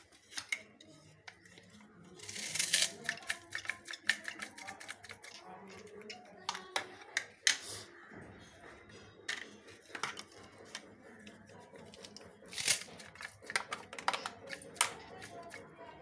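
Irregular clicks and knocks from handling onion pieces and a plastic kitchen cutter on a counter, with a couple of brief scraping rustles. Faint background voices can be heard.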